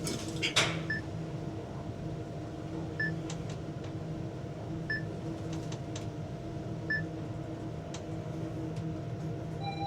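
Passenger elevator car travelling down, with a steady machinery hum and a short high electronic beep sounding four times about two seconds apart. Right at the end an arrival chime begins as the car reaches the lobby.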